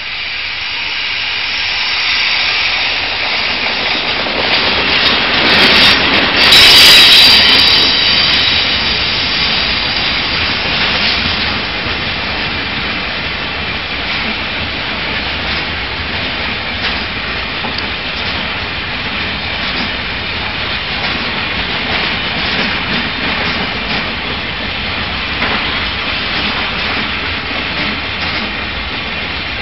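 Freight train hauled by a TRA E300-class electric locomotive passing close by. It is loudest about six to eight seconds in as the locomotive goes past, then settles into the steady running noise of a long line of covered hopper wagons on the rails, with repeated wheel clacks.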